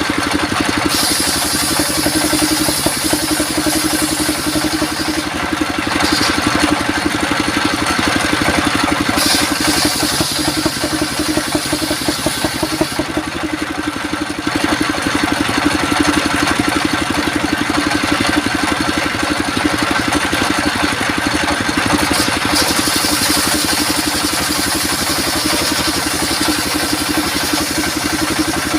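Sawmill circular saw and its drive engine running steadily, with a high hiss above the drone that drops away briefly twice.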